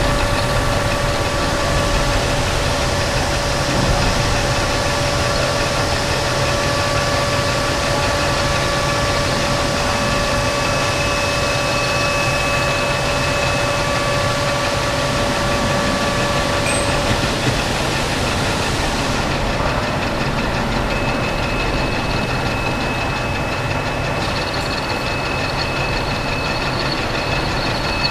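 Metal lathe running steadily while machining a workpiece for a 3/4 NPT taper thread: a continuous mechanical hum with several held whining tones, some of which stop and give way to others about two-thirds of the way through.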